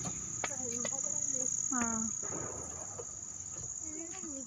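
Crickets chirring in a steady, high-pitched unbroken trill, with a short voice sound about two seconds in and another near the end.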